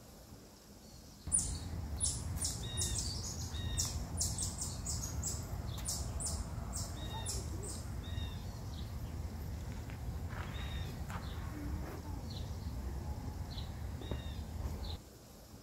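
Birds chirping, with a flurry of quick high chirps in the first few seconds and sparser calls after, over a steady low outdoor rumble. The sound starts abruptly about a second in and cuts off shortly before the end.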